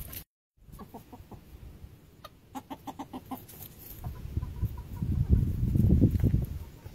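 Chickens clucking: a quick run of short clucks about a third of the way in, then scattered single clucks. A louder low rumbling noise comes in during the second half.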